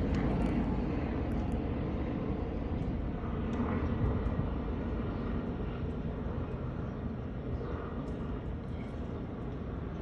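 Two military helicopters flying over, a steady low drone that slowly fades.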